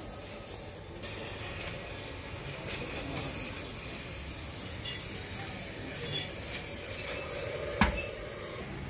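Steady workshop background noise with a faint hum, and one sharp knock near the end as the bare cast-iron engine block is set down on the brick floor.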